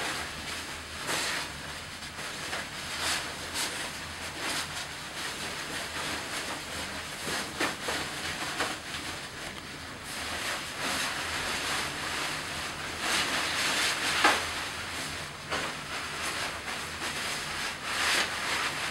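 Rustling and crinkling of a disposable fluid-impervious isolation gown as it is pulled on over the shoulders and its ties are fastened, coming in irregular bursts.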